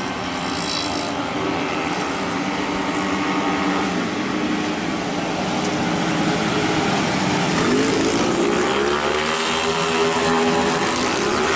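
A pack of 131cc standard automatic scooters racing at full throttle, many engines buzzing together. Their pitch bends up and down from about two-thirds of the way in, as the pack brakes and accelerates through a corner.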